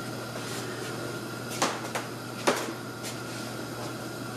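Kitchen background: a steady low hum, with three light knocks or clicks between about one and a half and two and a half seconds in.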